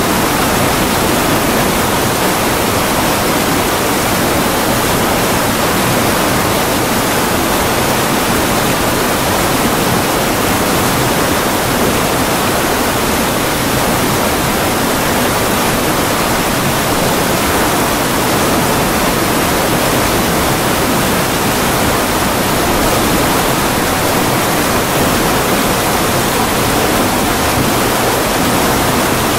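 Water pouring through a sluice gate and crashing white into the pool below: a loud, steady rush.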